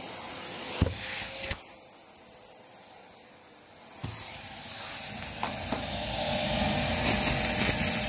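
Bosch Ergomax 2000 W vacuum cleaner running at full suction with its cleaned filter back in, a strong rush of air over a thin high motor whine. The air sound changes sharply a few times and the whine steps up in pitch about halfway through.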